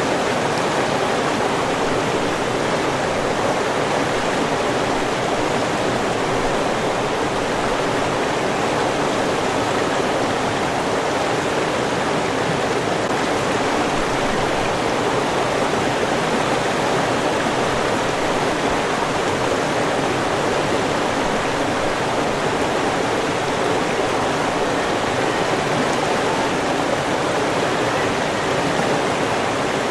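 River water flowing, a steady rushing without pauses or changes.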